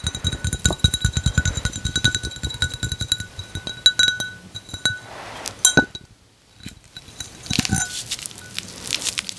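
Bath bomb fizzing in water: a dense, rapid crackle of tiny popping bubbles, with a steady ringing tone over it. It dies down about five or six seconds in, followed by a few louder handling sounds near the end.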